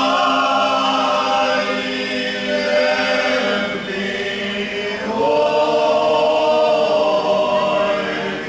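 Men's folk singing group singing a traditional Slavonian song a cappella in unison, in long held phrases, with a short break for breath just before the second phrase about five seconds in.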